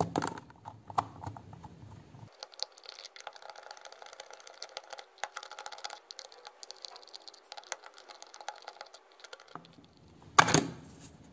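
Small screwdriver clicking and scraping against a hard plastic Bluetooth speaker housing as its screws are undone, with light ticks and rattles of small parts. A louder plastic crack and clatter near the end as the housing halves are pulled apart.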